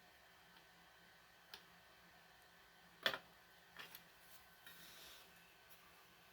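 Faint plastic clicks and taps as a smoke alarm's cover is guided back onto its base, the loudest a double click about three seconds in.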